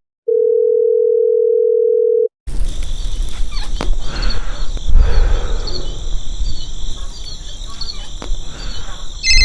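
A steady electronic beep tone, one pitch, lasting about two seconds. After a short gap comes a noisy stretch of low rumble under a steady high whine with small chirps.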